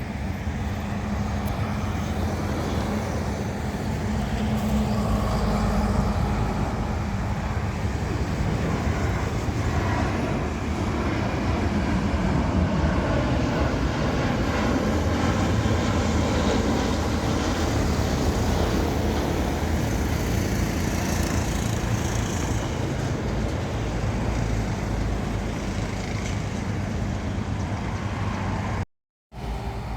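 Steady outdoor engine rumble, strongest in the low range and swelling slightly twice, with the audio cutting out briefly near the end.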